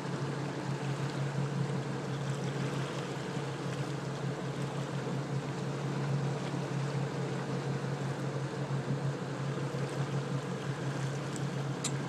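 Boat motor running steadily at low speed with a constant low hum, over a wash of water noise.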